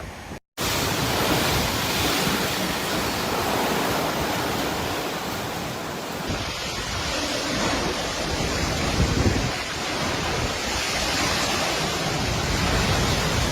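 Typhoon storm noise: a dense, steady rush of gusting wind and water over the microphone. It cuts out briefly about half a second in, then resumes.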